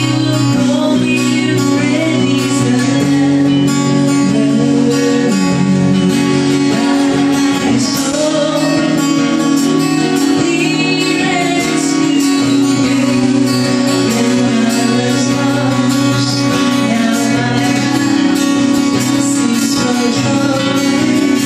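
Live song played on acoustic guitars with a woman singing the melody.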